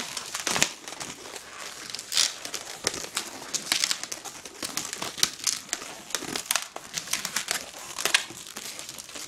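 Long latex twisting balloon being stretched and twisted by hand into small bubbles: the rubber rubs and squeaks against itself in short, irregular scratchy sounds, several close together at times.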